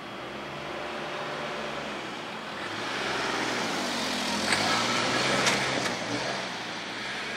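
A vehicle passing by over steady traffic noise, swelling to its loudest about five seconds in and then fading.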